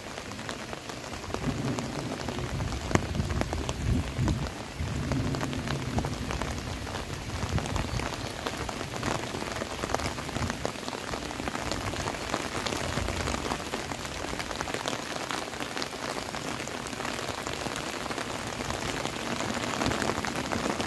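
Steady rain falling on trees and grass, an even hiss with many separate drop hits.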